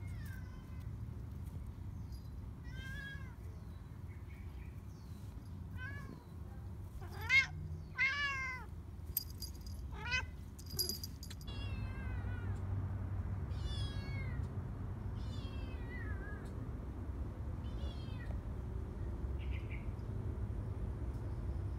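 A kitten meowing over and over: about a dozen short, high-pitched meows every second or two, the loudest pair about seven seconds in, over a steady low background rumble.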